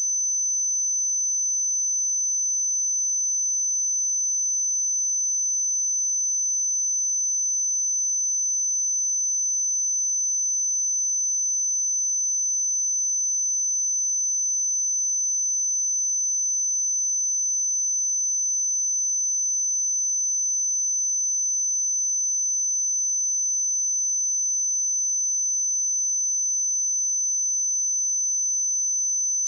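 A pure 6091 Hz sine-wave test tone, one steady high-pitched whistle-like pitch held unchanged.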